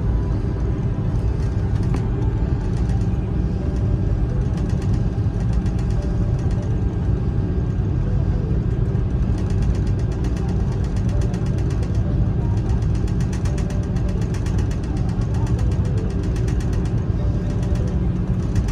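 Steady low rumble inside the cabin of an Airbus A330-200 as it taxis, with its engines and its wheels rolling on the taxiway.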